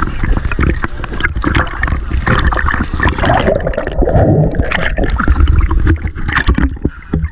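River water splashing and gurgling around a camera that is moving through the water's surface, with a swimmer churning the water close by. The sound is loud and jumbled, with many sharp splashes, and is muffled into bubbling for a moment about halfway through while the camera is under water.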